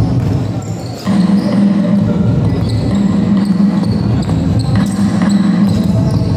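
A basketball bouncing on a court during a game, a series of short knocks over a steady low hum.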